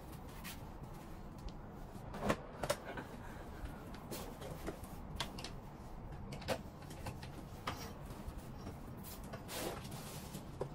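Handling noise of a wooden clothes hanger and a pair of trousers: a handful of irregular sharp clicks and knocks as the hanger is handled and hooked onto a garment steamer's stand, over a steady low background.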